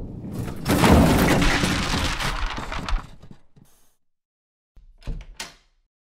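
Cartoon sound effects: a loud rushing, breaking crash that trails off over about three seconds. After a moment of silence comes a short thud with a quick whoosh about five seconds in.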